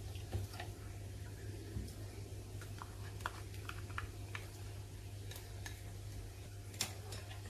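Spoon stirring ground spice paste into coconut milk in a bowl: light, irregular clicks and clinks.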